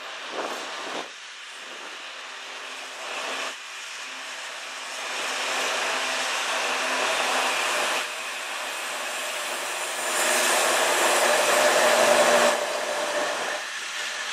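CN freight train passing: steady wheel-on-rail rushing and rumble, with the drone of the diesel locomotives coming in as they go by. It builds and is loudest about ten to twelve seconds in, then eases off. There are a couple of short louder bumps in the first few seconds.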